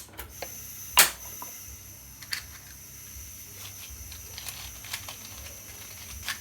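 A few sharp clicks and knocks of a pot and utensils being handled on the stove, over a steady faint hum.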